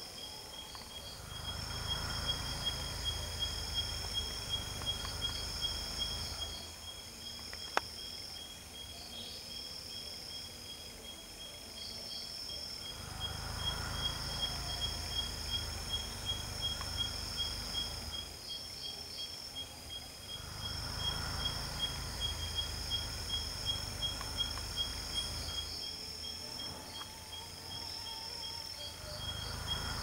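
Night chorus of crickets and other insects: a steady, high, fast-pulsed trill and a still higher band of repeated short chirps. A low rumble comes and goes in stretches of a few seconds.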